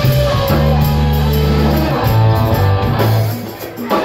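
Live band playing, electric guitar and bass over drums, amplified through a club PA. The music drops back briefly just before the end.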